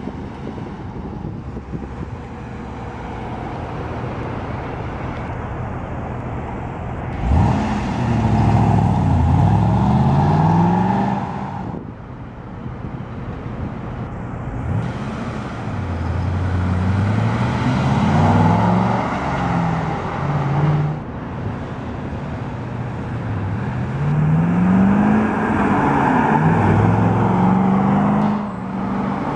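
2011 Chevrolet Camaro SS's 6.2-litre LS3 V8 accelerating past, its exhaust note rising in pitch three times with steadier, lower running in between. The sound cuts off abruptly a few times.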